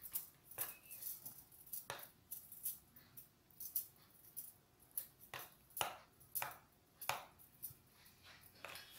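Metal spoon stirring a thin cream sauce in a glass baking dish, scraping and tapping against the glass in a string of short, irregular strokes, a little over one a second.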